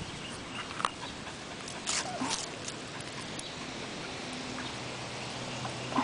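A puppy and a dog play-fighting: short scuffles and small dog noises, with a brief cluster of sounds about two seconds in and another right at the end.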